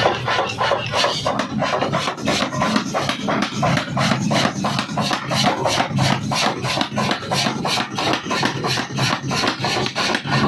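75 kg mechanical forging hammer pounding a square workpiece in a fast, even rhythm of about three to four blows a second, over the low hum of its drive.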